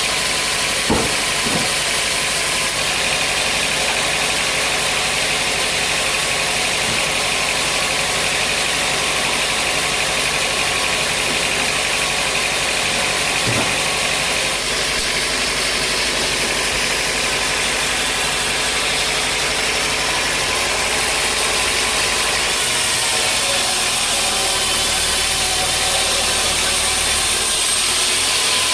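Sawmill machinery running steadily, with a couple of sharp knocks about a second in and another about halfway through.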